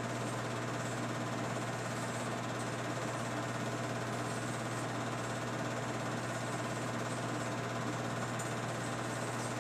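8mm film projector running: a steady mechanical whir and fast clatter over a constant low hum, unchanging throughout.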